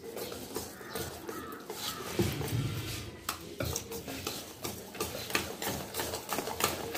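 A wire whisk beating thick cake batter in a stainless steel bowl: quick, irregular scraping strokes with clicks of the whisk's wires against the metal.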